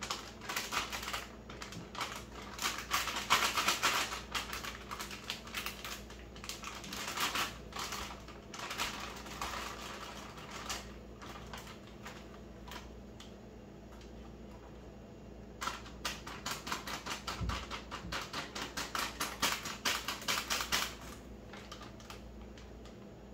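A metal cooking utensil clicking and scraping against cookware: a dense clatter for about ten seconds, a short lull, then quick regular strokes about four a second that stop near the end.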